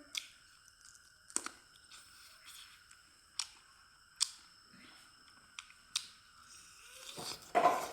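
A person chewing food close to the microphone, with sharp wet mouth clicks and smacks every second or so and a louder, longer crunching bite near the end.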